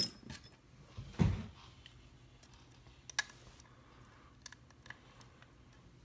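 A few small clicks and light clatter of metal lock picks and a key being handled and set down: a sharp click at the start, a duller knock about a second in, and fainter ticks after.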